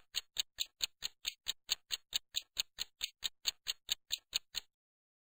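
Clock-ticking sound effect of a quiz countdown timer: quick, even ticks, about four or five a second, marking the time left to answer. The ticking stops about four and a half seconds in.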